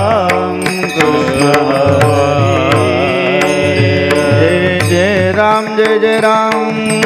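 Marathi devotional kirtan music: a male voice singing with wavering, ornamented pitch over a steady drone, with small hand cymbals (taal) striking in a regular rhythm and drum strokes underneath.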